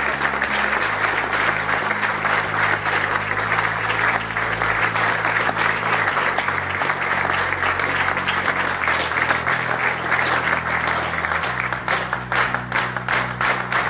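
Group of people applauding, dense and steady, thinning into separate claps near the end. Music with slowly changing low sustained notes runs underneath.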